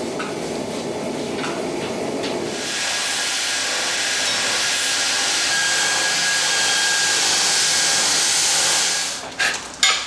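Steady hissing of a spray on a horseshoe held in tongs, then from about two and a half seconds in a power grinder grinding a steel horseshoe: a steady, loud grinding noise with a faint thin whine, which stops about a second before the end, followed by a few short knocks.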